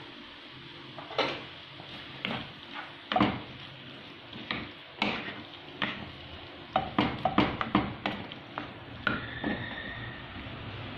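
A spatula knocking and scraping against a non-stick frying pan while ground meat and chopped tomato are stirred, in irregular strokes with a quick run of them about seven to eight seconds in.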